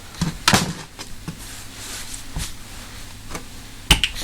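A few knocks and clunks of parts and tools being handled on a workbench. The loudest comes about half a second in, and a sharp one comes near the end.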